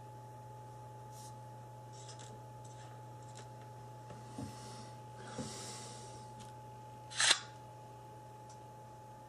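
Faint light taps of a finger on a phone touchscreen over a steady electrical hum, with a short breathy noise about seven seconds in as the loudest sound.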